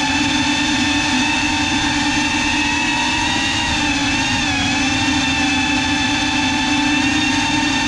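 GEPRC CineLog35 cinewhoop drone's motors and ducted propellers whining steadily as it flies slowly, the pitch dipping briefly about four seconds in.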